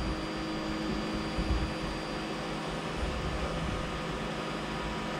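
Steady electric fan hum with a few constant tones and a faint high whine. A few soft low bumps come about a second and a half in.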